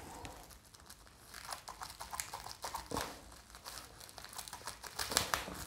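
Plastic bubble-wrap packaging crinkling as it is handled, in irregular crackles, loudest about three seconds in and again about five seconds in.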